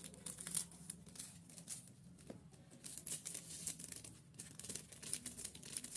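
Plastic packaging crinkling and rustling in irregular little crackles: instant-noodle seasoning sachets being handled and opened.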